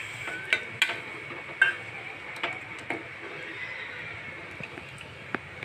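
Steel ladle stirring boiled drumstick pods into thick masala gravy, clinking and knocking against the metal pot about half a dozen times, over a faint steady hiss.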